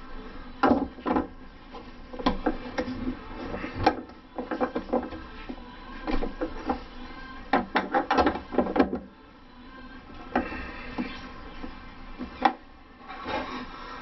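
Irregular metallic clicks, knocks and scrapes of a nut driver tightening the ground-wire nut on a washing machine heating element's terminal, with a quick run of clicks about eight seconds in.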